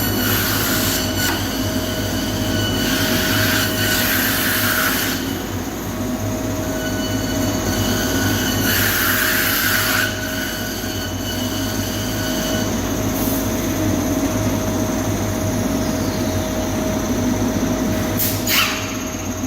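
Nanxing NCG2812L CNC nesting machine running: a steady machine whine, with a few bursts of hiss lasting a second or two each, and a brief sweep near the end.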